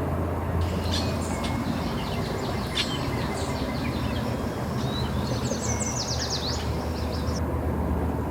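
Birds chirping in quick high trills and chips, ending in a rapid series of falling notes, over a steady low engine hum.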